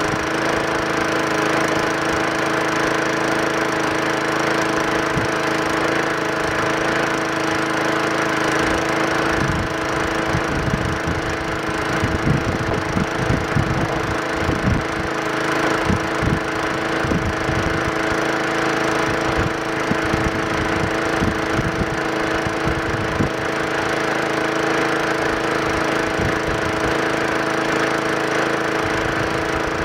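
Single-cylinder engine of a 20-inch Craftsman push lawn mower running steadily at full governed speed, measured at 3,400 RPM, which is right for a 20-inch blade. Irregular low crackling and knocks come in over it from about ten seconds in until a little past twenty seconds.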